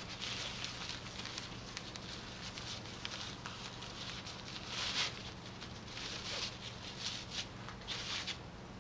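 The fabric ties of a stoma belt rustling as they are pulled and knotted into a bow at the waist, in short irregular swishes, the loudest about five seconds in. A faint steady hum lies underneath.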